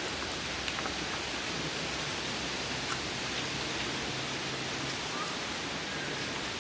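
Steady, even outdoor background hiss with no clear single source, broken only by a couple of faint ticks.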